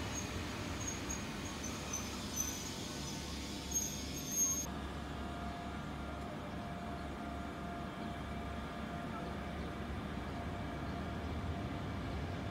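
Steady low rumble of a train on the line, with a few light knocks in the first half. About four and a half seconds in, the sound changes abruptly and a faint steady whine runs on over the rumble.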